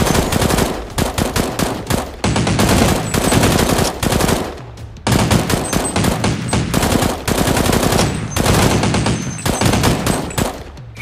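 Gunfire sound effects: bursts of rapid automatic fire, several long strings of shots with short breaks between them, the longest break a little past the middle.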